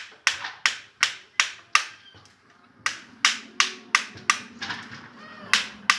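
Sharp metallic clicks from a hand tool working a stuck bolt on a motorcycle engine, evenly spaced at nearly three a second. They come in three runs, breaking off about two seconds in and again around five seconds.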